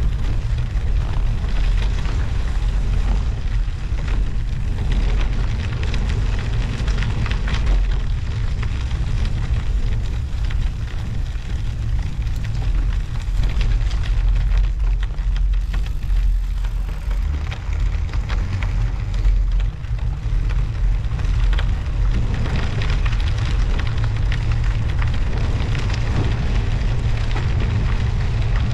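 Wind noise on the camera microphone while riding, with a continuous fine crackle from studded bicycle tyres (Schwalbe Marathon Winter Plus) rolling over snow and ice.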